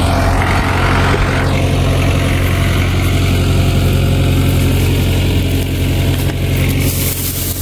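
International B275 tractor's four-cylinder diesel engine idling steadily.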